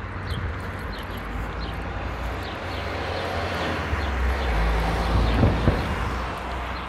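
A car passing along the street. Its tyre and engine noise swells to a peak about five seconds in, then fades.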